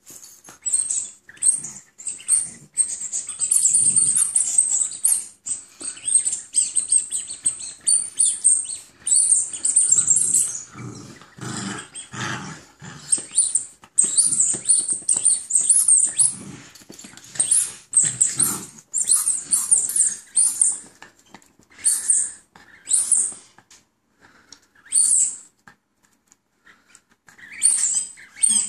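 Black-and-tan puppy playing tug with a green toy, growling in short bursts between irregular scratchy chewing and scuffling noises.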